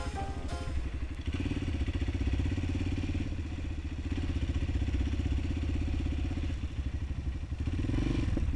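Honda CRF230M supermoto's single-cylinder four-stroke engine running steadily.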